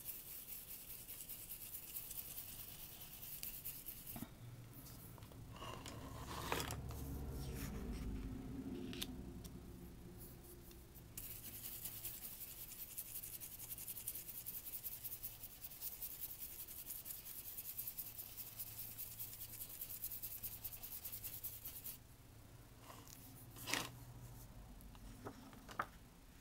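A round ink blending brush scrubbing in small circles over a plastic stencil and cardstock: a soft, steady scratchy brushing that stops and starts. A few light clicks and rustles come as the stencil is handled and shifted, notably near the end.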